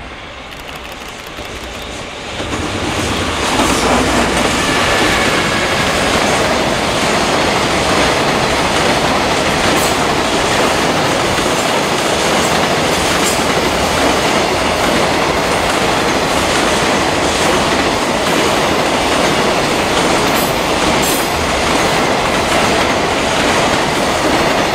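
JR Freight EF210 electric locomotive hauling a long container freight train past. The noise grows over the first few seconds as the locomotive nears, then holds as a steady, loud rolling of the wagons' wheels on the rails.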